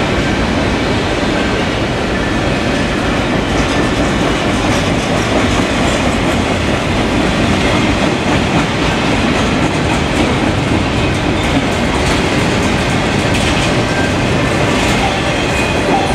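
CSX freight train's double-stack container well cars rolling past, a loud steady rolling noise of steel wheels on the rails.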